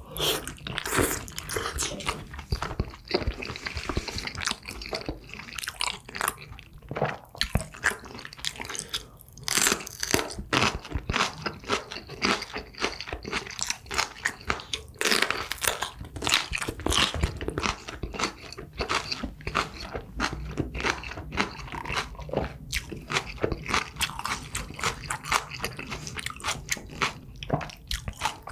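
Close-miked eating: a person biting and chewing crunchy food, a steady irregular run of sharp crunches and wet chewing sounds.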